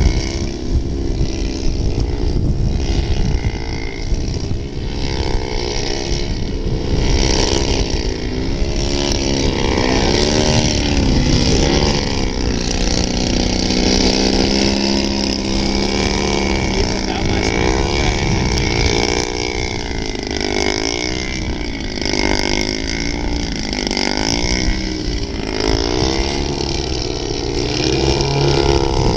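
Engines of radio-controlled 3D aerobatic model airplanes buzzing in flight, their pitch rising and falling constantly as the throttle changes through the manoeuvres.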